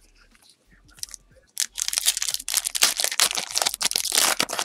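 Foil wrapper of a Panini Prizm Basketball retail pack being torn open and crinkled. It starts about a second and a half in as a dense crackle that runs on to the end, after near quiet with a few faint ticks.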